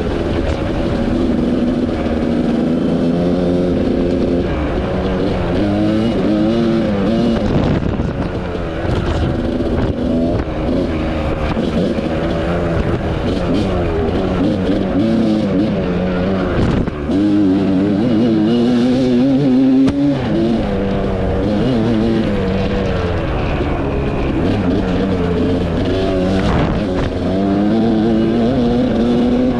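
Dirt bike engine running under way, its pitch rising and falling over and over as the throttle is opened and closed and the gears change.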